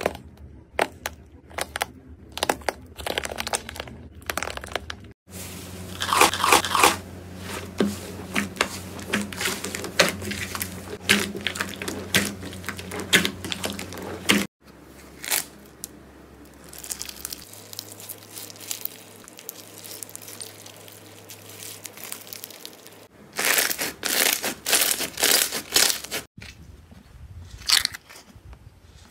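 Hands working slime in short back-to-back clips: a hardened slime crust cracking and crunching, then thick slime pressed and squished with dense crackles and small pops.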